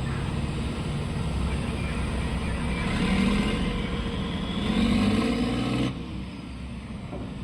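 Diesel engine of a Komatsu PC2000 mining excavator working under load, its pitch rising as it revs up through a dig or swing, then dropping off abruptly about six seconds in.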